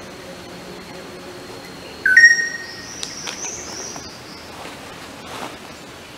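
One short, loud bird call about two seconds in, its pitch stepping up and then holding briefly. Behind it is a steady forest background with a faint high, even tone that fades out soon after.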